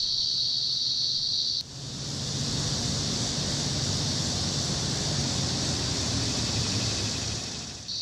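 A steady high-pitched insect chorus, which cuts off suddenly after about a second and a half. A steady rushing noise with a faint low hum takes its place, fading away near the end.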